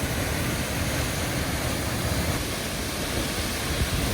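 Waterfall pouring, a steady rushing noise with a deep rumble underneath. A couple of brief thumps come near the end.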